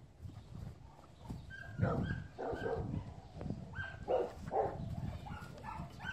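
Dog yipping and whining in a run of short high calls, starting about one and a half seconds in and coming several a second.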